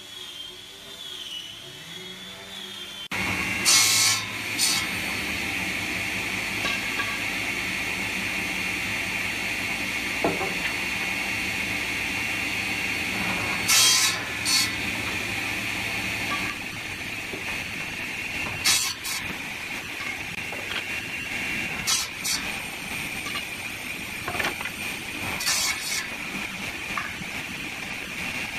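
A woodworking power machine starts up about three seconds in and runs steadily with a high whine. Sharp knocks and clatters of wood come now and then over it.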